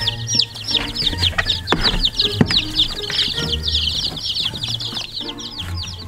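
A brood of baby chicks peeping continuously: many short, high peeps, each falling in pitch, overlapping several at a time. A couple of sharp knocks come about two seconds in.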